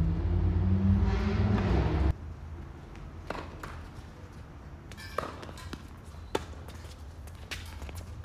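A loud low rumble cuts off suddenly about two seconds in. After it come scattered sharp taps of a tennis ball bouncing on a hard court, and footsteps.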